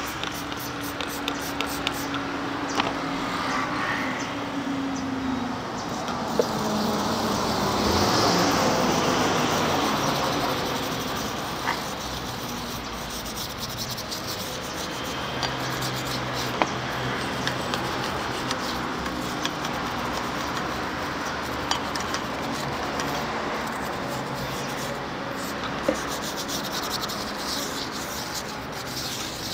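Stiff plastic brush scrubbing soapy water over a motorcycle tyre and wheel rim, with short spritzes from a trigger spray bottle now and then: a soap-bubble leak check of the newly fitted tyre. A passing vehicle swells up about eight seconds in.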